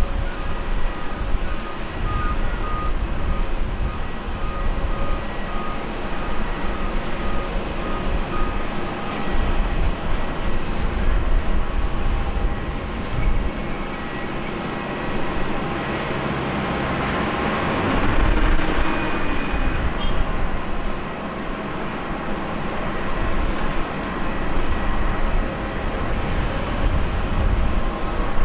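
Steady jet-engine whine and rumble of an airliner on the apron, with a low rumble that comes and goes. The noise swells louder for a few seconds about seventeen seconds in, then settles again.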